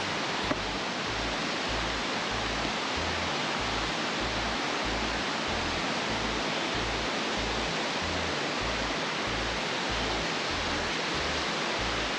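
Background music with a low, pulsing bass line, over a steady rushing noise.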